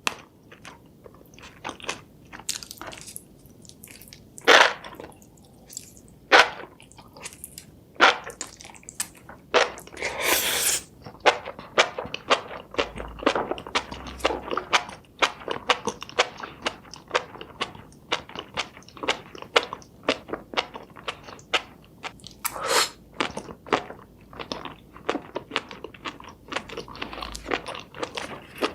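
Close-up eating sounds of seafood: chewing with many quick clicks and crunches. A few louder crunchy bites stand out, about four and a half seconds in, around ten seconds in and near twenty-three seconds.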